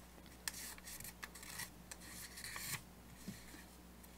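Faint rubbing and rasping of a small sheet of origami paper as fingers fold it and press the crease flat, in short scrapes with a few light crackles, quieter near the end.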